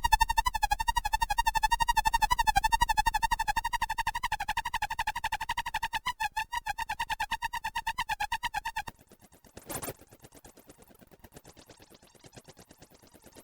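Behringer Crave analog synthesizer playing a rapidly pulsing, warbling high tone that drops out about nine seconds in. A short burst of noise follows, then faint fast pulsing.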